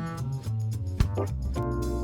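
Funky straight-eighths jazz backing track: bass line, chord instrument and drum kit playing together.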